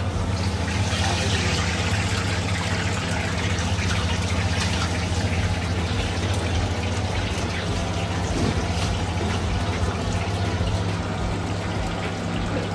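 Kurkure momos deep-frying in hot oil, a steady crackling sizzle over a constant low hum.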